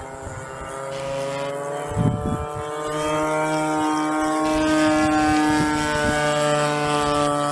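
Electric ducted fans of a scale RC Airbus A380 whining in flight, a steady whine of several stacked tones that grows louder about three seconds in as the model comes closer. A brief low rumble of wind on the microphone comes about two seconds in.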